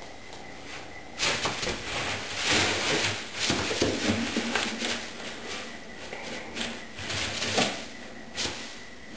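Loose polystyrene bean bag beads rustling and rattling as a kitten burrows through them, in irregular bursts that are busiest in the first half.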